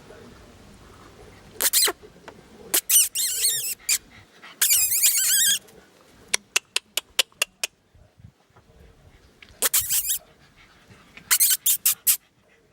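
Exotic bully puppies squealing and yipping: two longer high, wavering squeals, then quick runs of short sharp yips.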